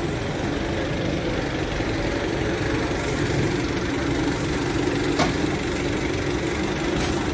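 Diesel engine of a Komatsu FD25 forklift running steadily as the forklift moves a load. Two brief light knocks about five and seven seconds in.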